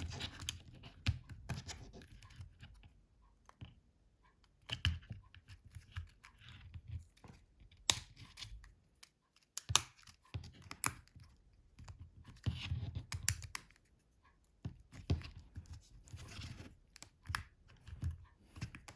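Plastic mobile-phone housing parts handled and pressed together by hand: scattered sharp clicks and snaps, with scraping and rustling in between.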